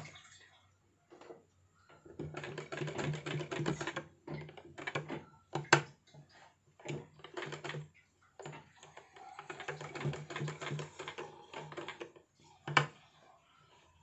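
Black straight-stitch sewing machine stitching in short runs: rapid, even needle ticking over a low hum, stopping and starting several times as the fabric is turned along a curved seam. Two sharp clicks stand out, one about halfway through and one near the end.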